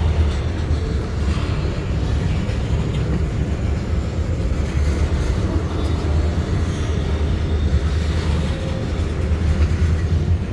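EMD GP40-2 diesel locomotive's turbocharged V16 engine, paired with a road slug, running steadily as the train pulls out: a loud, even low rumble.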